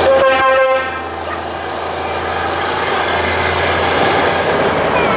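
A truck air horn gives one blast of just under a second as a vintage Brockway truck passes, followed by the steady running of the parading Brockway diesel trucks, growing slightly louder as the next trucks approach.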